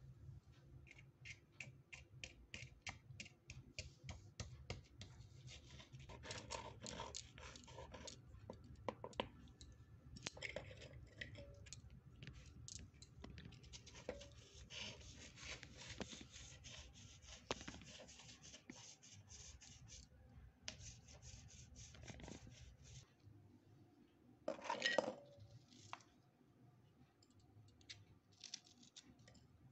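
Small stone pestle tapping and grinding chocolate cookie pieces in a miniature stone mortar: quick light taps at first, then gritty crunching and scraping, briefly louder about 25 seconds in. Near the end a small spoon scrapes the crumbs out of the mortar.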